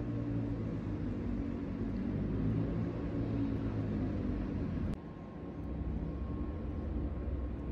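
A steady low mechanical rumble with a droning hum. About five seconds in it drops abruptly to a quieter, deeper rumble.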